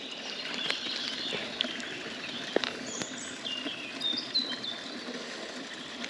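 Shallow river flowing over a gravel bed as a steady rush, with small birds chirping briefly near the middle and a few light clicks.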